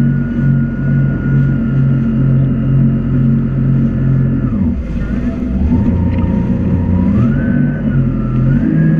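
Jet ski engine running at speed; about halfway through its pitch drops as the throttle is eased, then climbs back up in steps over the next few seconds as it is opened again.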